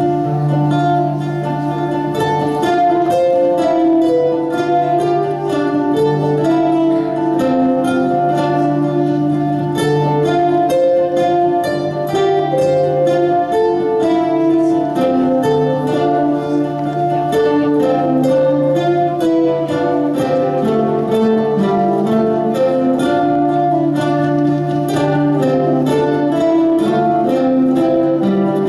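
Ensemble of acoustic guitars playing a piece in layered parts: many quick plucked notes over a steady low held note.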